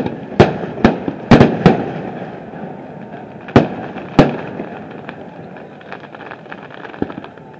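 Aerial firework shells bursting: a quick run of loud bangs in the first two seconds, two more about three and a half and four seconds in, and a lighter one near the end, with a patter of fainter pops between.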